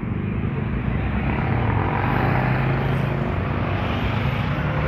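Small motorbike engines running in street traffic, a steady low drone that rises slightly in pitch partway through.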